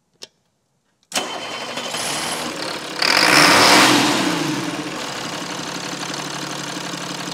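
An engine starts about a second in, revs up once and settles back to a steady idle.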